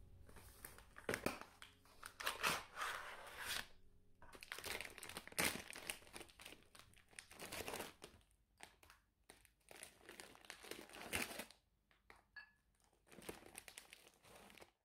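Foil snack bag crinkling and rustling in irregular bursts as wafer rolls are pulled out of it, dying down for a moment before a last bout of rustling near the end as the bag is closed.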